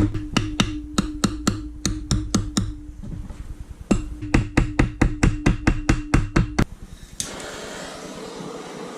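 Rapid, evenly spaced tapping strikes, about four to five a second, in two runs with a short break between them, while the engine case halves are being separated; the tapping stops about two-thirds of the way in, leaving a faint hiss.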